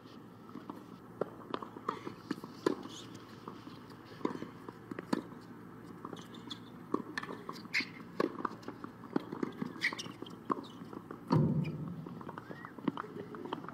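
Hard-court tennis sounds: scattered sharp knocks and taps of tennis balls bouncing and players' footsteps, irregularly spaced rather than in a rally rhythm, over faint voices. A louder thud comes about eleven seconds in.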